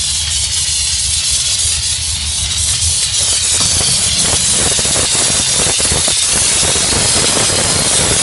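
Diesel-fired steam car-washing machine blowing steam from its outlet with a loud, steady hiss over the machine's low running hum. About three seconds in, the hiss grows fuller and rougher.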